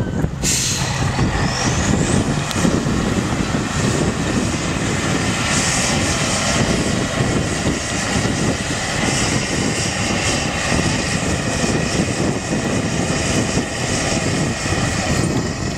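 Six-wheeled trial truck's diesel engine working hard under load as the truck climbs a steep dirt slope, a steady heavy drone.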